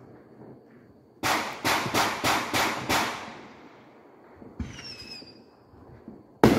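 Consumer fireworks: a quick run of about six sharp, echoing bangs, then a brief whistle, and near the end a single loud bang, the loudest of all, as a rocket bursts.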